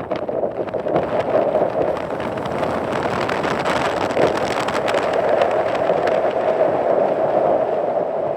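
Strong mountain wind blowing hard over the microphone, a loud steady rush that swells a little in gusts.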